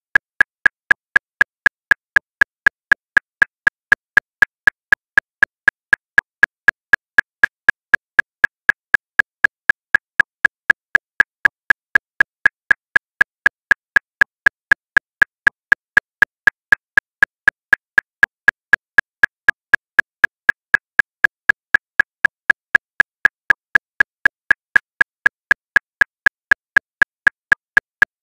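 Metronome clicking steadily at 239 beats per minute, about four even, identical clicks a second.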